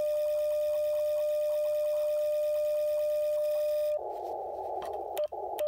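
Icom IC-705 transceiver's steady CW sidetone tone during a tune-up transmission, while the mAT-705Plus automatic antenna tuner matches the antenna on the 30 m band, with faint rapid ticking under it. About four seconds in the tone cuts off as tuning ends, and the receiver's band hiss through the narrow CW filter follows.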